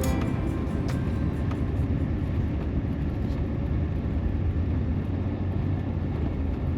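RV on the move: a steady low engine and road rumble.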